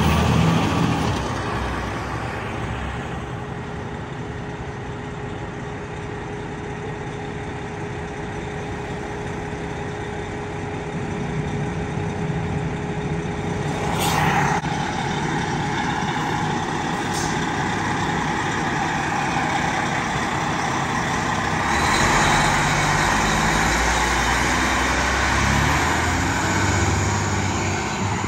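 Fire trucks' diesel engines running as a ladder truck and then a pumper drive past, loud at first, quieter in the middle, and louder again for the last several seconds as the engine pulls away. There is a brief sharp burst of noise about halfway through.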